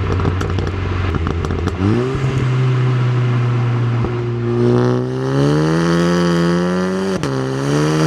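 A four-cylinder VW car engine and exhaust pulling under throttle, with sharp crackles and pops at first. The engine note climbs steadily, then drops suddenly about seven seconds in, as at a gear change.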